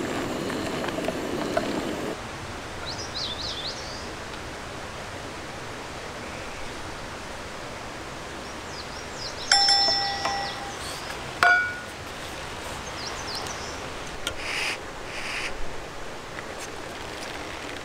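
Two metal clinks about two seconds apart: the first, about ten seconds in, rings on briefly in a clear ding; the second is shorter. Quiet outdoor ambience with faint bird chirps runs under them, and a steady low noise stops about two seconds in.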